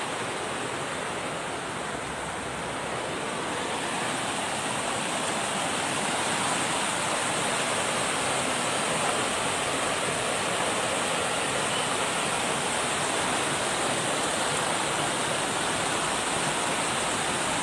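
Muddy flash-flood water rushing steadily down a street.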